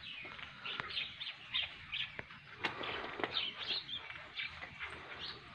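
Small birds chirping in quick, short, high notes, one after another, with a few light clicks among them.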